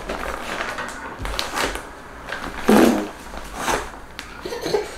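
Built-in foot pump of an inflatable camping air mat pressed repeatedly by bare feet, about five puffs of air forced through the valve with nylon fabric crinkling, roughly one a second. The loudest, just under three seconds in, is a buzzing, fart-like blurt of air.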